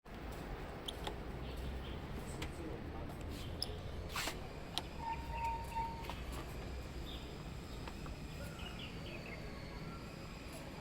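Outdoor street ambience: a steady low rumble with scattered sharp clicks and faint high chirps, and a brief steady tone about halfway through.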